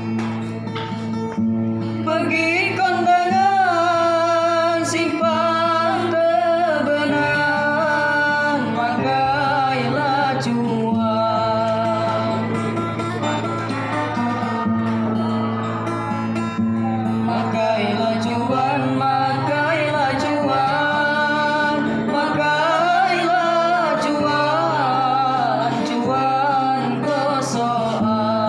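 A Batang Hari Sembilan folk song from South Sumatra: a single voice sings a wavering, ornamented melody over steadily strummed and plucked acoustic guitar. The voice comes in about two seconds in, after a few bars of guitar alone.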